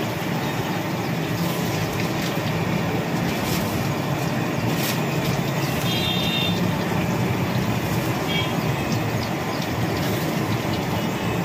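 Sabudana vadas deep-frying in a large iron kadhai of bubbling oil: a steady, dense sizzle with a low hum underneath.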